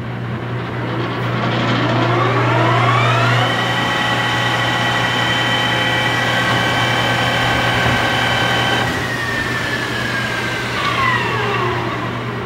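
Clausing Colchester lathe's geared headstock spinning up to 1500 RPM, its gear whine rising in pitch over a steady motor hum. It runs steadily for about five seconds, then winds down in pitch near the end.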